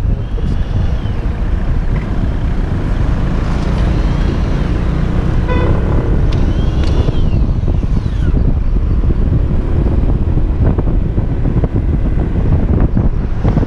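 Wind rushing over the microphone on a moving Kymco Xciting 250i maxi-scooter, with the scooter's engine running under it at steady road speed.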